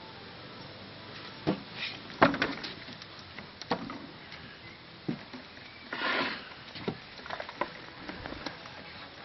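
Irregular knocks and scuffs on a wooden deck, from footsteps and the handheld camera being bumped, with a short rustle about six seconds in.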